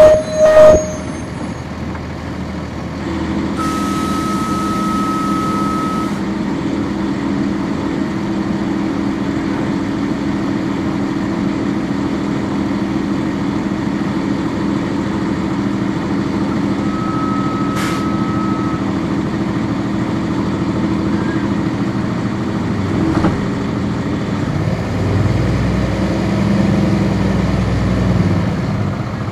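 On board a 1999 NovaBus RTS transit bus: its Cummins ISC inline-six diesel running steadily after a couple of loud knocks at the very start. A high tone with a hiss of air sounds for about two seconds around four seconds in and briefly again later, and near the end the engine note rises and falls as it revs.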